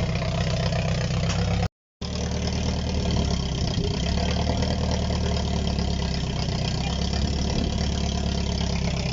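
Rebuilt Opel Corsa B GSi 1.6 16-valve four-cylinder engine running at a steady fast idle soon after its first start. It is loud because only part of the exhaust, one and a half silencer boxes, is fitted. The sound drops out for a moment about two seconds in.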